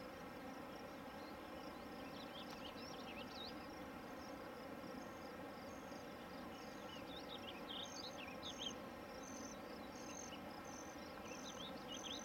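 Faint songbirds chirping and whistling: many short, quick notes, some clear level whistles in the second half, over a soft steady rush.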